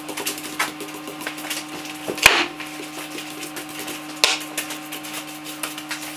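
Hand brush sweeping sawdust off a sawn burl slab and the saw table: repeated scratchy strokes, with a sharp knock about two seconds in and another about four seconds in, over a steady low hum.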